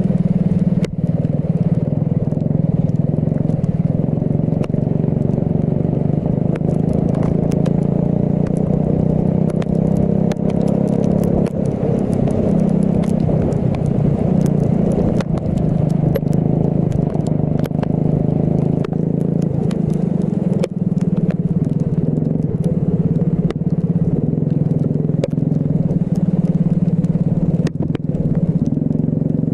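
Racing kart engine running hard, its pitch rising and falling with the revs, with scattered sharp clicks over it.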